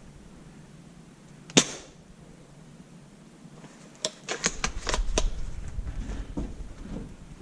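Airsoft guns firing: a single sharp shot, then a quick string of about seven shots around four to five seconds in. The single shot is the loudest.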